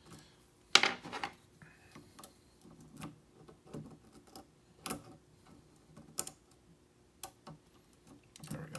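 Small metallic clicks and ticks as a Peterson hook pick works the pins of a pin-tumbler challenge lock, with a tension bar in the keyway, during single-pin picking. The clicks are irregular, about a dozen sharp ones, the loudest about a second in and about five seconds in.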